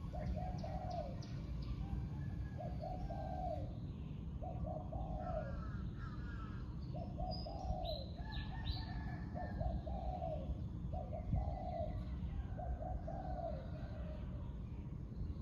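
Spotted dove cooing, a run of short low coo phrases repeated about every second, with small birds chirping faintly in the background.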